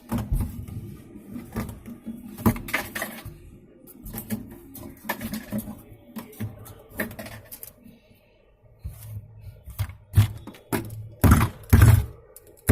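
Irregular clicks, knocks and scrapes of hands and tools working on a refrigerator's parts, with a few louder knocks near the end.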